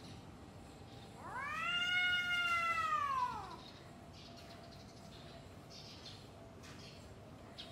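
Cat yowling in a face-off with another cat: one long drawn-out call that rises, holds and then falls away, starting about a second in and lasting over two seconds. It is a threat yowl ahead of a fight.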